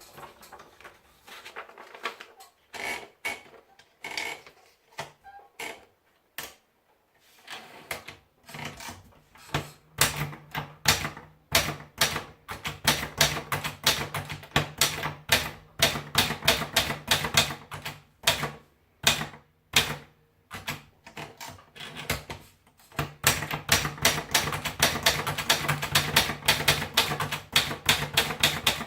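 Privileg 360 Cassette typewriter being typed on: a few scattered keystrokes at first, then fast, continuous typing with a steady low hum underneath, broken by a couple of short pauses.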